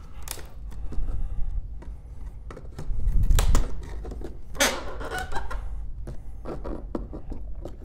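Pry bar levering the lid of a wooden shipping crate: wood creaking and cracking with scattered clicks of metal on wood, loudest in a drawn-out strain a few seconds in and a sharp crack with a short squeal of a nail or staple working loose soon after.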